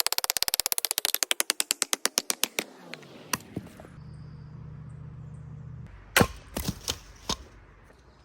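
Rapid clicking, about twenty a second, that slows and dies away over the first three seconds, then a low steady hum. About six seconds in, a handmade axe strikes wood four times in under two seconds, each one a sharp chop.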